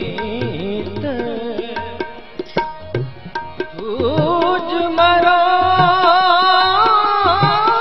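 Harmonium and tabla playing an Indian devotional melody: the harmonium's notes are thinner in the first half and swell into strong held notes from about halfway through, over a steady pattern of tabla strokes.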